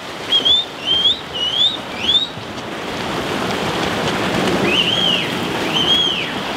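Continuous splashing of several swimmers churning through pool water at speed. Over it a bird chirps: four quick rising chirps in the first two seconds, then two longer arched calls near the end.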